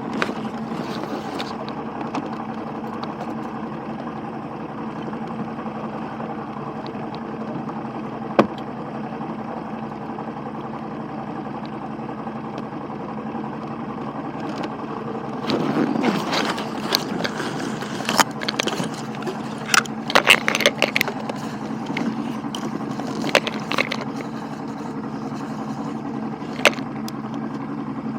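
An engine running at a steady speed. A sharp click comes about 8 seconds in, and a cluster of knocks and clicks follows in the second half.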